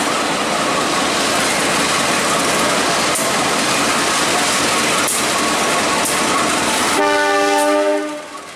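Two coupled GE-built diesel-electric locomotives, a CC201 and a CC203, running loudly as they pass close by. About seven seconds in, one sounds its horn for about a second, and then the noise falls away.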